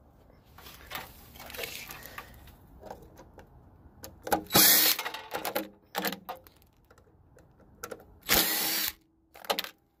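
A small power tool's motor running in two short bursts of about half a second each, one near the middle and one near the end, with quieter scraping and handling noise before them.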